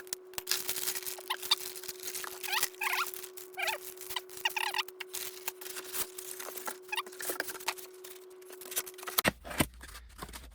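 Packaging being handled while a shipping box is opened: irregular rustling, crinkling and clicking, with a few short squeaks.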